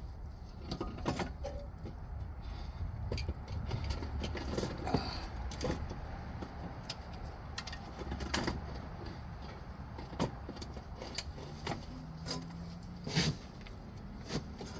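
Bell housing being worked loose and pulled off the back of an engine by hand: scattered metal clunks, knocks and scrapes over a low rumble, with a low steady hum coming in near the end.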